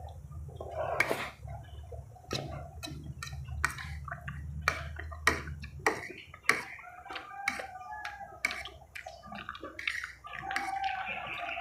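Close-up eating sounds: two people chewing spaghetti and fried food with wet mouth smacks and clicks, several a second, and slurping of noodles. A low hum in the background stops about halfway through.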